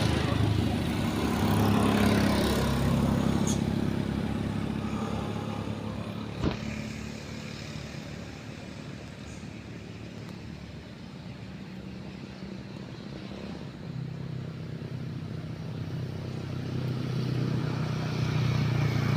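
Motor vehicle engine noise that swells early, fades through the middle and rises again near the end, as traffic passing by, with a single sharp knock about six and a half seconds in.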